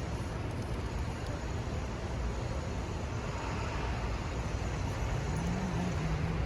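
Steady low rumble of city street traffic, with a faint engine-like hum rising slightly about five seconds in.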